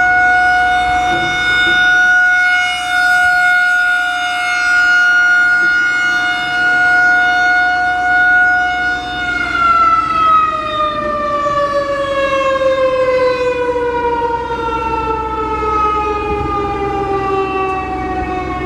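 Federal Signal 2001-130 electromechanical outdoor warning siren sounding a single steady tone during a test. Its loudness swells and fades about every two seconds as it rotates. About nine seconds in, its power is cut and the pitch falls steadily as the rotor winds down.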